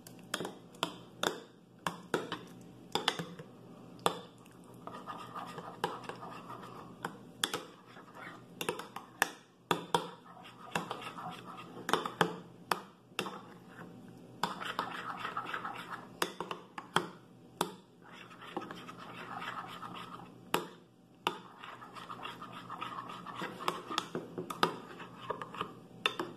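Metal spoon stirring a thick chipotle-mayonnaise dressing in a glass dish, scraping along the glass with frequent sharp clinks against its sides.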